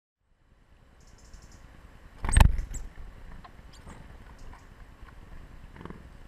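A loud thump on the wooden bird feeder about two seconds in, as a small bird lands or takes off close by, followed by scattered light taps and clicks of small birds pecking among the seeds and nuts on the wooden tray.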